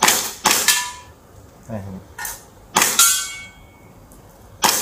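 Gas-powered airsoft Glock pistol in a carbine conversion kit firing single shots, each a sharp crack of gas release and slide blowback. There are four shots, the first two close together, and short metallic pings ring after some of them.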